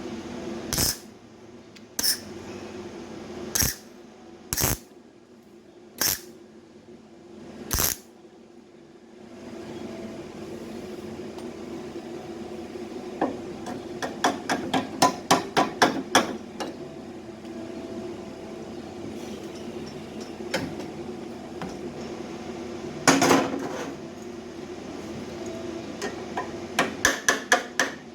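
Hammer striking sheet metal. Six single blows come a second or so apart, then quick runs of rapid taps later on, over a steady low hum.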